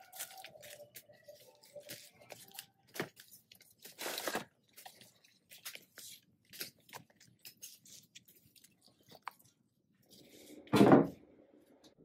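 Crackling, rustling and sharp clicks of leaves and scrap being handled as a rusty cast-iron sewing machine is pulled from a junk pile, with a longer scraping rustle about four seconds in. Near the end, a loud heavy thud as the machine is set down on a workbench.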